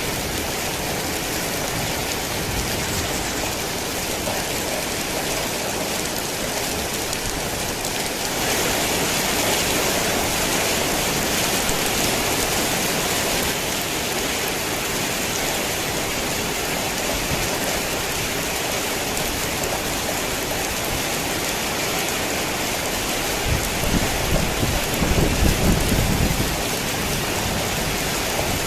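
Heavy rain falling steadily, a little heavier for several seconds from about eight seconds in. Low rumbles of thunder come in near the end.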